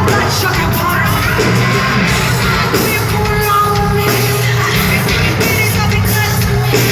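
Live heavy metal band playing loud, distorted and crowded by its own volume as heard from the pit, with a singer's voice over the band.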